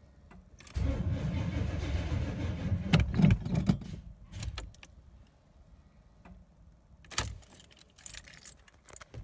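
A 1990 Chevy Suburban's starter cranks the engine for about three seconds without it catching, on an old, weak battery; keys jingle in the ignition and a few clicks follow.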